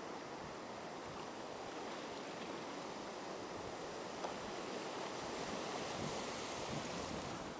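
Ocean surf breaking and washing around the shallows: a steady rush of water that swells a little in the second half.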